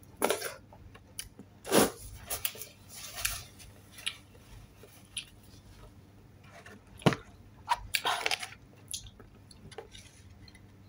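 Chewing and mouth sounds of a person eating by hand, with scattered sharp clicks and crinkles of plastic takeout containers being handled, the loudest about two seconds in and again about seven seconds in.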